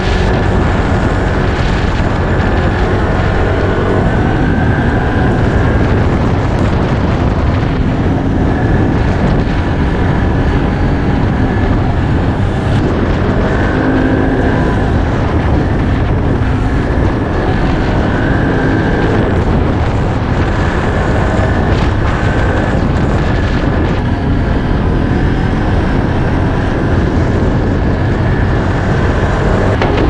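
ATV (quad bike) engine running steadily as the quad is ridden along the beach.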